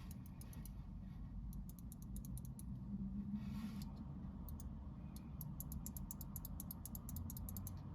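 Faint, irregular light clicking and ticking, a few clicks a second, over a low steady hum, with a short soft hiss about three seconds in.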